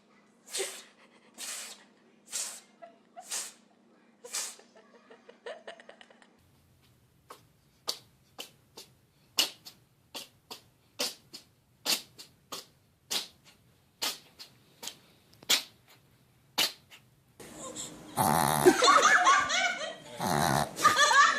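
Two runs of short, sharp pet sneezes. The first run comes about once a second, and after a cut the second comes about twice a second. Near the end people laugh loudly.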